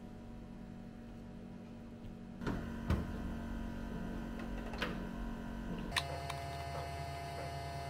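A steady mechanical hum, with a few sharp clicks and knocks as a plastic water bottle is handled at a water dispenser; the hum gets louder about two and a half seconds in and shifts to a higher steady tone about six seconds in.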